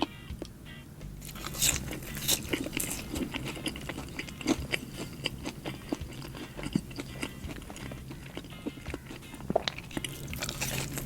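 Close-miked eating: crunchy bites and chewing of a burger, a run of sharp crackles and squishes.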